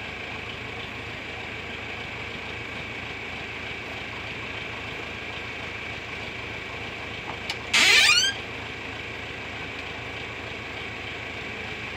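Farm tractor engine idling steadily. About eight seconds in, a short, loud squeal rising in pitch cuts in for about half a second.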